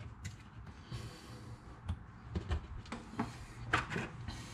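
Faint handling sounds: a few light taps and rubs as a cable is pressed onto adhesive pads under a kitchen wall cupboard.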